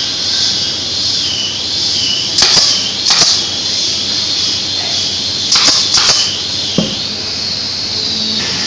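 Pneumatic brad nailer firing nails into a plywood corner joint: two sharp shots a few seconds in, then a quick run of three shots about three seconds later and a duller knock just after.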